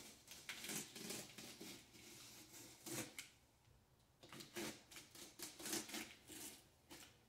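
Knife slicing and scraping along the edge of a cardboard box, with cardboard rustling: faint, irregular short scratches in quick succession.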